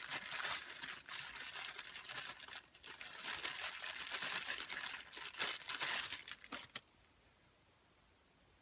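Packaging crinkling and rustling as items are handled and unwrapped, with a few sharper crackles, stopping suddenly about seven seconds in.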